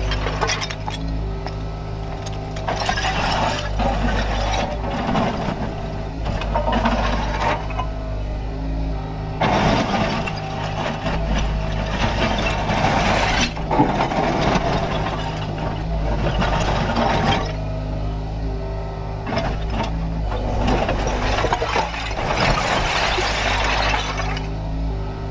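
Kubota KX61-3 mini excavator at work: its diesel engine runs steadily while the hydraulics load up in several surges of louder, harsher sound. Scraping and clinking from the bucket against soil and stones are mixed in.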